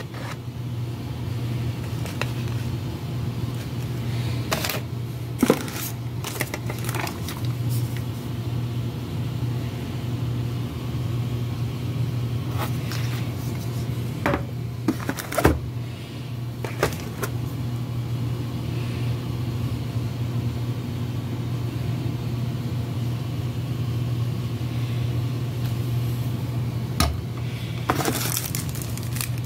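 Plastic packaging crinkling and items knocking in a cardboard box as hands move toothbrush packs, toothpaste and a bag of sweets about, in scattered short bursts, over a steady low machinery hum.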